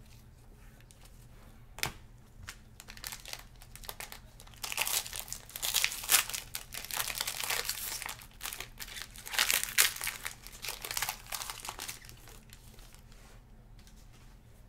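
Clear plastic wrapper crinkling and tearing as gloved hands pull it open and crumple it, in a dense run of crackles from about four to twelve seconds in, after a single sharp click near two seconds.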